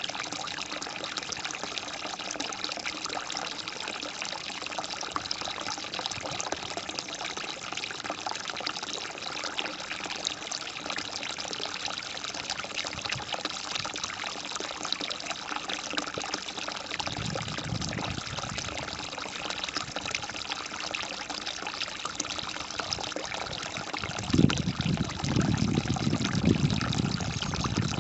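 Water trickling and splashing steadily, with a low rumble coming in briefly partway through and again near the end.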